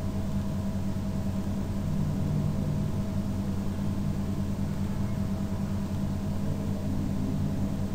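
A steady low hum with a few faint steady tones over it, unchanging throughout.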